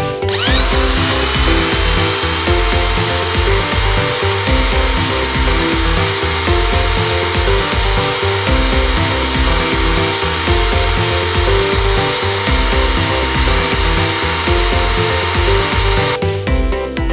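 An electric motor spins up with a rising whine, then runs steadily with a high whine and rushing hiss, and cuts off near the end. Background music with a steady beat plays under it.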